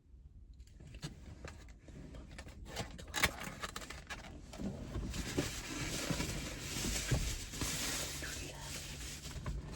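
Rustling and small clicks and knocks of takeout food containers being handled, starting faint about a second in and growing louder.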